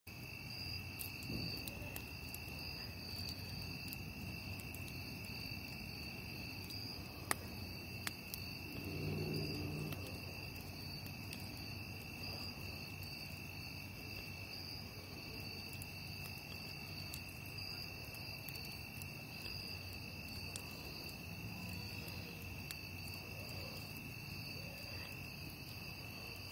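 Night insects chirring steadily at a high pitch, with occasional sharp crackles and pops from a burning wood campfire; the loudest pop comes about seven seconds in.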